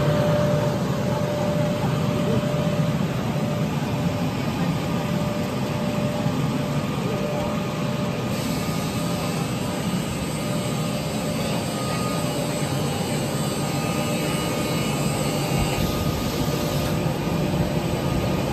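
220-model EPE foam sheet extrusion machine running: a steady mechanical drone with a faint steady whine over it.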